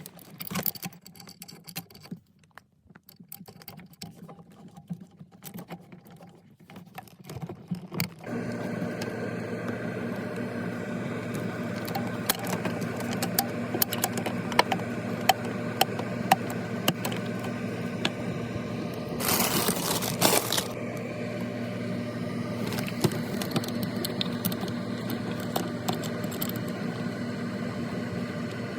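Small clicks, taps and scrapes of an ice maker being handled and screwed into place inside a freezer. About eight seconds in, a steady low electrical hum starts suddenly, and the clicking carries on over it, with a brief rush of noise about twenty seconds in.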